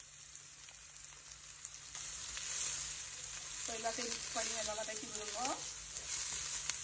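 Chopped small onions sizzling in hot ghee with whole spices in a frying pan as they are stirred. The sizzle starts faint and grows louder about two seconds in.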